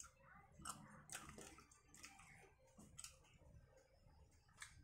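Faint mouth sounds of someone eating by hand: a handful of soft, separate clicks and smacks from chewing.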